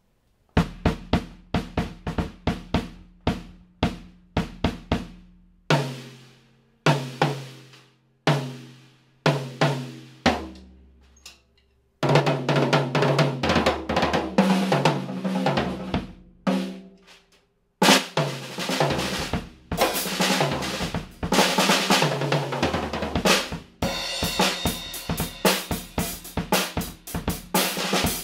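Farmer Foot Drums compact drum kit being played: for the first twelve seconds, single hits on the bass drum, snare and toms, each left to ring out. Then a full groove with cymbals and hi-hat, which stops briefly about seventeen seconds in and starts again.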